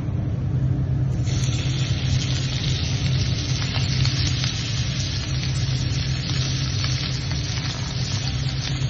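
Lobster pieces sizzling as they sear in hot oil in a stainless steel frying pan, the sizzle starting suddenly about a second in as they go into the pan. A steady low hum runs underneath.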